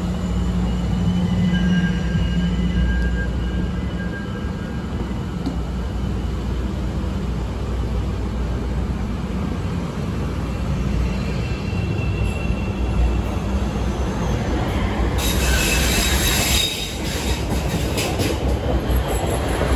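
CTA 5000-series rapid-transit train pulling out of the station and running past along the platform, a steady rumble of wheels and motors. About fifteen seconds in there is a high wheel squeal for about a second and a half.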